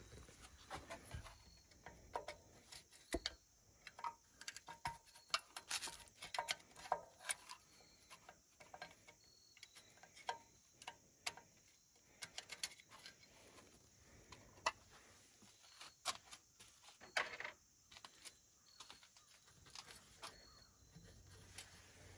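Scattered, irregular light clicks and clinks of small steel washers and bolts being handled by hand as they are taken off a thermostat housing.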